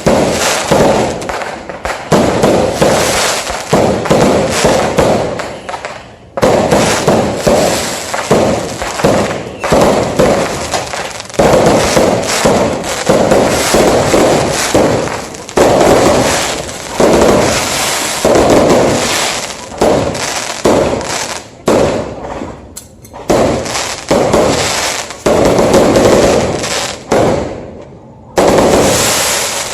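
Fireworks going off in rapid, dense volleys of bangs and crackles, with a few short lulls between volleys.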